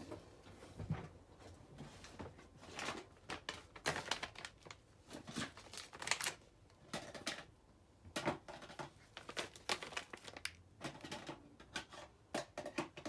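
Craft stamps and supplies being rummaged through and handled on a table: irregular clicks, taps and rustles with no steady rhythm.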